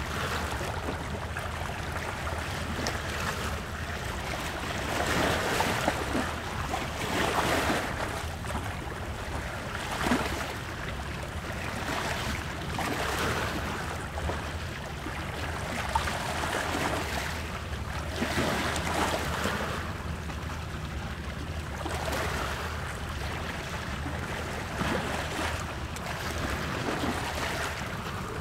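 Ocean waves breaking and washing in, a continuous surf noise that swells and eases every few seconds, with a few sharper splashes.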